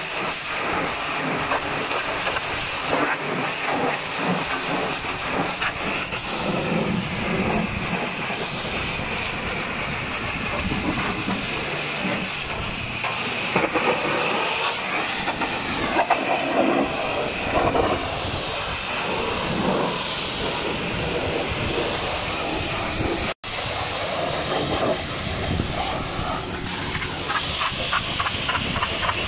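High-pressure washer jet spraying water onto the steel tipper body and chassis of a muddy truck: a steady loud hiss with splashing that changes as the lance moves. It breaks off for an instant late on.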